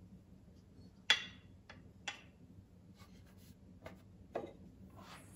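Wooden toy animal figures being handled and set down by a wooden toy ark: about five light wooden clicks and knocks, the sharpest about a second in.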